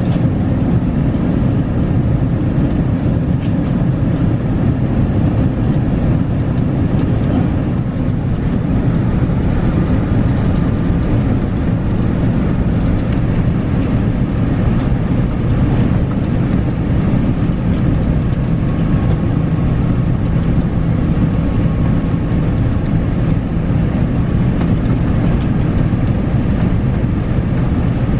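Steady low rumble of engines and rushing air inside the cabin of a Boeing 787 Dreamliner descending on approach.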